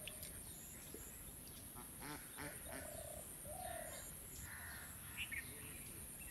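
Faint bird calls: a cluster of short calls in the middle and two quick high chirps near the end, over a steady high hiss.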